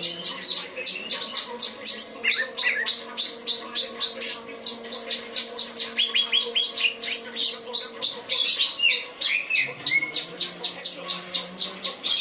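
Cucak cungkok singing its trained song: a fast, even run of high chirps, about five a second, with a few lower sliding whistle phrases mixed in.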